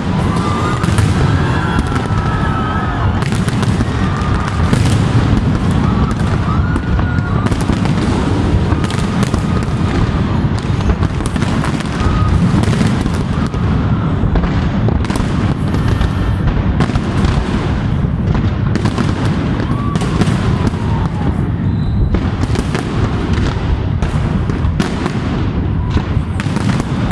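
Large aerial fireworks display: shells bursting in a dense, continuous barrage of cracks and booms, many a second, over a constant low rumble.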